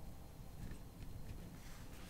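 Quiet room tone: a faint low hum with a few soft ticks.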